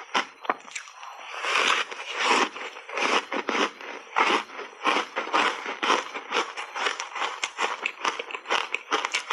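Reshaped ice coated in matcha powder being bitten and chewed: a dense run of rapid crackling crunches, with one longer gritty crunch about a second and a half in.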